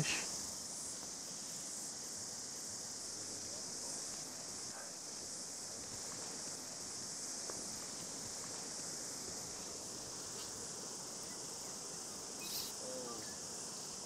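Cicadas singing in the riverside trees: a steady, high-pitched chorus drone.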